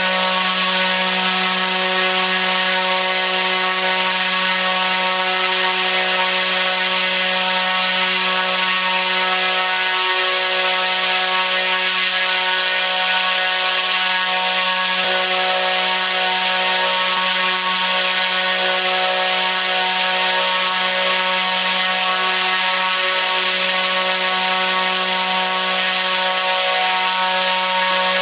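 T-Motor U13 100 kV brushless motor driving a 29-inch three-blade carbon-fibre propeller at full throttle: a loud, steady drone of constant pitch over a rushing of air.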